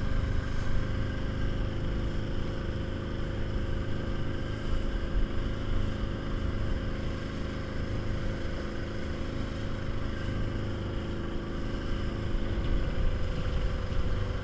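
A small inflatable speedboat's outboard motor running steadily under way, with water rushing past the hull; the engine's tone shifts a little near the end.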